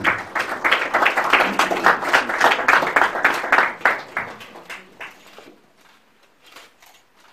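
Audience applauding, dying away about five seconds in, with a few scattered claps after.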